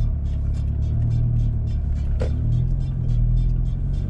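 Background music with a steady beat of about three ticks a second, over a low steady drone of a car driving on the highway.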